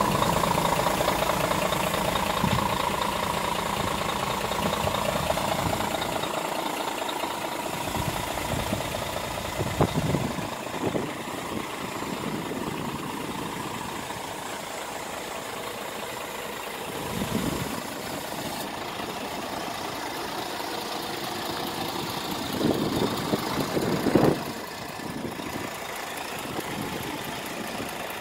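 Scania R450 tractor unit's 13-litre inline-six diesel idling steadily, with a few brief louder bumps over it.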